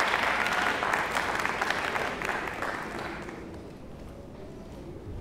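Audience applauding, a dense patter of many hands that dies away about three seconds in.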